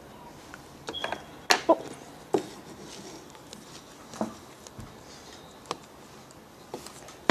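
Handling noise as plastic dolls are moved about and knocked together: scattered light clicks and knocks, several in the first half and a few more spaced out later.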